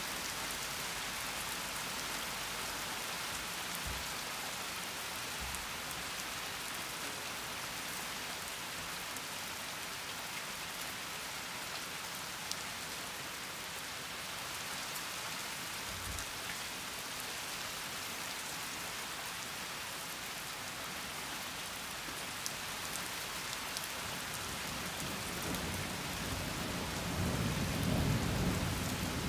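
Steady rain falling, with scattered close drips. A low rumble of thunder builds near the end.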